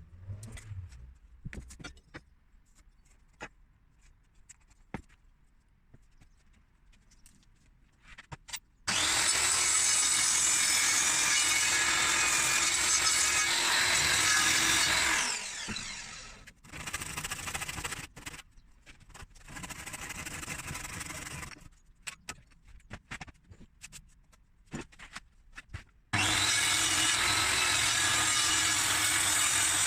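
Power saw cutting timber for a roof rafter: light knocks and clicks of handling at first, then the saw runs through the wood for about six seconds from about nine seconds in. Two shorter, quieter runs follow, and a second loud cut starts near the end.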